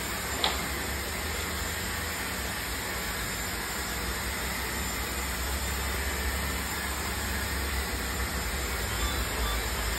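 Steady background noise, a hiss with a low rumble, and one faint click about half a second in.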